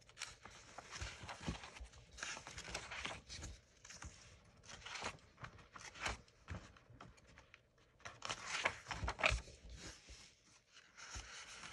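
Paper pages of a handmade journal being turned and handled: repeated soft rustles and crinkles, with a few light knocks. The rustling is busiest about eight to nine seconds in.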